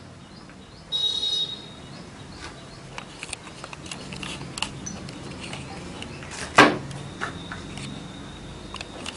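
Small clicks and taps of plastic inkjet cartridge parts being handled, with one sharp, loud snap about six and a half seconds in. A brief shrill chirp sounds about a second in.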